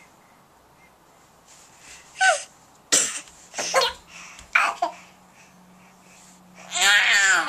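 A young child's voice: four short, sharp vocal outbursts, then a long high-pitched squeal near the end.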